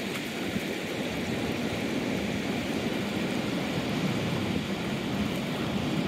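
Steady rushing noise of strong wind buffeting the microphone, mixed with surf and a shallow stream running over stones.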